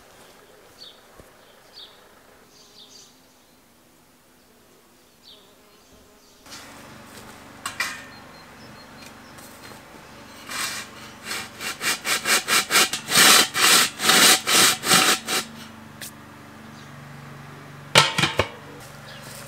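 A metal tin drum is worked back and forth into loose soil, giving a fast run of loud scraping rasps, three to four a second, for about five seconds. Near the end comes a single sharp clank as the drum's glass lid is set on. Faint high chirps are heard at first.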